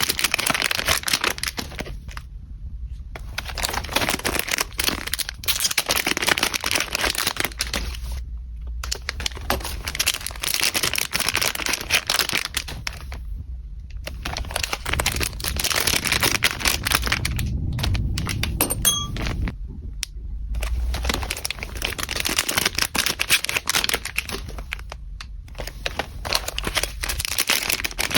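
Packaging being handled: dense crinkling and rustling in stretches of a few seconds, broken about five times by brief silent gaps.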